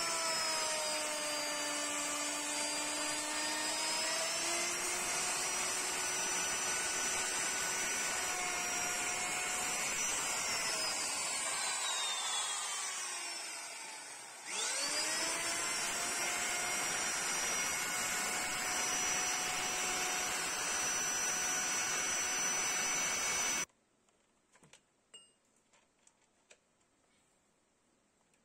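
Handheld electric router running at speed while cutting a groove along a curved hardwood door frame: a steady high whine over the noise of the cut. About halfway through it winds down with a falling whine, then starts up again with a quick rising whine and runs on. A few seconds before the end it stops abruptly, leaving near silence with a few faint ticks.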